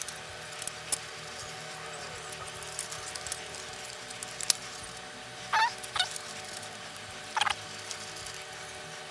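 Hard plastic parts of a large transforming robot figure clicking and knocking as its legs are folded and tucked away. Three short squeaks, rising in pitch, come from the joints being worked, two close together about halfway through and one more a second and a half later.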